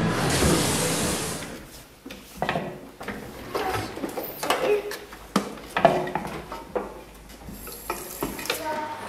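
Washing up at a stainless-steel kitchen sink: dishes and utensils clattering and knocking again and again, with a dish brush scrubbing a wooden cutting board under the running tap. It opens with a loud rushing hiss that stops after about a second and a half.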